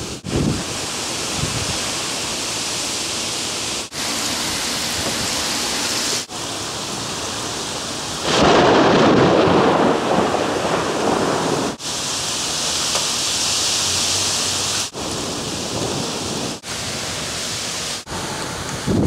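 Thunderstorm: steady rain hiss, with a rolling peal of thunder about eight seconds in that lasts around three seconds, and another low rumble near the end. The sound cuts out in short gaps every few seconds.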